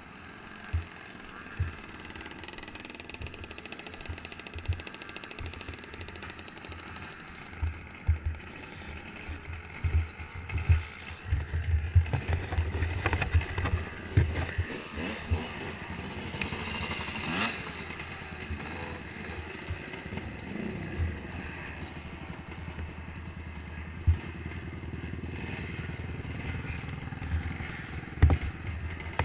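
Off-road motorcycle engines running in the pits, rising and falling in pitch through the middle. Many low knocks and rubbing on the helmet-mounted camera sound over them.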